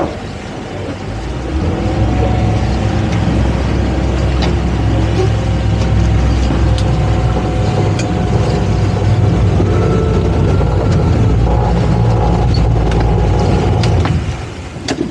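Twin Suzuki outboard motors of a towboat running under throttle while towing, with water rushing in the wake. The engine note picks up about a second and a half in, runs steadily, and eases off near the end.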